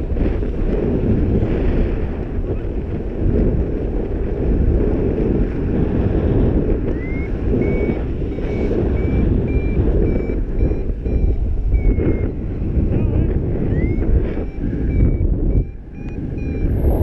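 Wind buffeting the microphone of a paraglider in flight. From about seven seconds in, a paragliding variometer beeps a high tone about twice a second, each run starting with a rising glide: the climb signal that the glider is in lift.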